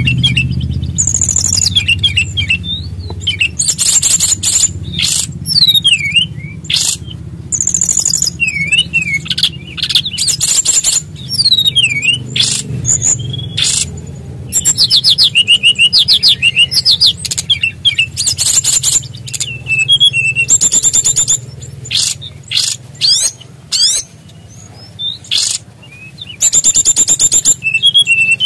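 SRDC (sikatan rimba dada coklat), a small jungle flycatcher, singing a loud rolling song. It comes in bursts of very fast trills and swooping whistles, broken by short pauses, over a steady low hum.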